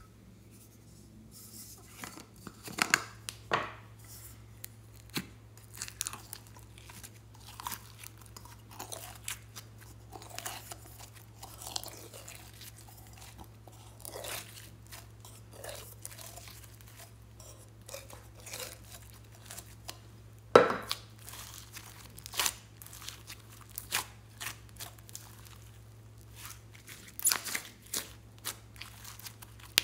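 Pink glossy slime being pulled from a container, stretched and pressed by hand, giving irregular sticky crackles, pops and tearing sounds, with one sharper, louder snap about two-thirds of the way through.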